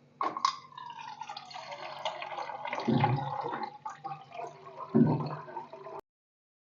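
Water running and splashing, with two knocks about three and five seconds in. The sound cuts off suddenly about six seconds in.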